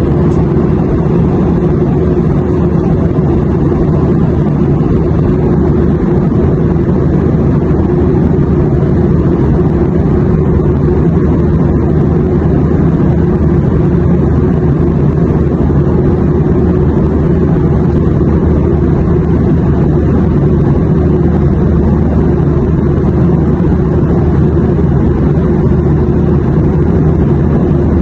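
Airplane noise: a steady, unchanging drone, heavy in the low range with a faint steady hum running through it.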